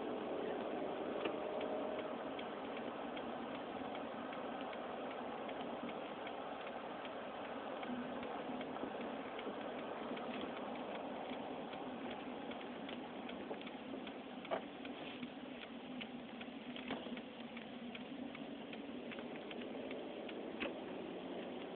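Kia Sedona minivan making its mysterious ticking noise: irregular light ticks over a steady vehicle noise, denser in the second half, with a few sharper clicks.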